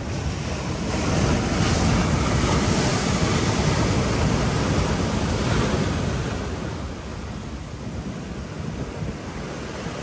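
Sea waves breaking and washing in foam over a shore of large rounded boulders. The surge swells about a second in, holds, then ebbs away after about six seconds.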